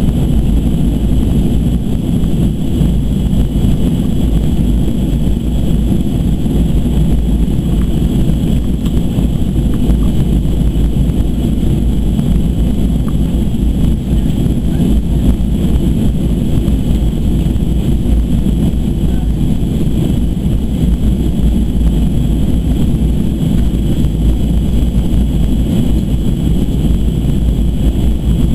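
Steady cabin roar of a Boeing 737-200 Advanced in descent: rushing airflow and its Pratt & Whitney JT8D turbofans, a loud low rumble with a faint high whine over it.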